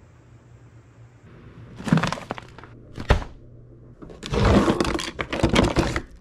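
Two short knocks, then a kitchen drawer pulled open about four seconds in, with a long clattering rattle of the metal spoons and knives inside as it slides.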